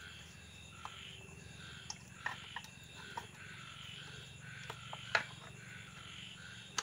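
A steady chorus of frogs and crickets calling over a low hum, with a few light clicks as the chainsaw's carburettor is handled. The sharpest click comes about five seconds in.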